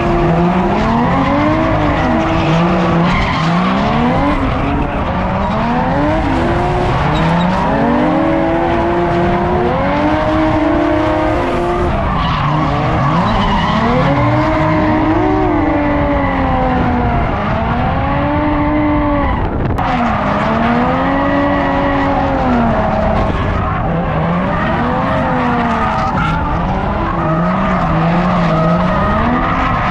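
Drift cars running in tandem, engine revs repeatedly climbing and dropping every second or two as the throttle is worked, over continuous tire squeal from the sliding tires.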